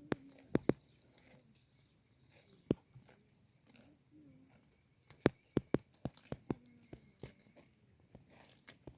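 Cows grazing, tearing off mouthfuls of wild grass: sharp crisp snaps at irregular intervals, a few near the start and a quick run of them from about five to seven and a half seconds in.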